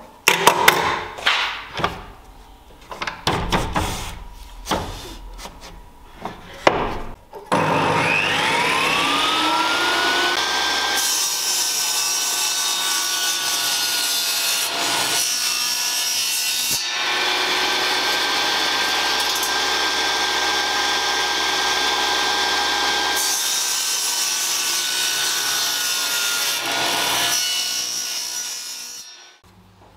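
Knocks of wooden blocks being handled on a table saw's steel table, then the saw's motor starting with a rising whine and running steadily while its blade cuts small hardwood pieces fed with a push stick. Near the end the blade spins down with a falling whine and stops.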